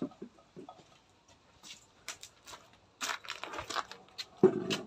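Scattered light clicks, taps and rustling as people get up and move around a table with dishes on it. The sounds become denser from about three seconds in, with a louder burst near the end.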